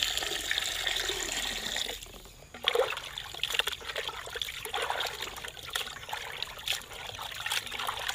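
A stream of water pouring into a clay pot of raw chicken pieces, stopping about two seconds in. Then hands wash the chicken pieces in the water, with irregular splashes and swishing.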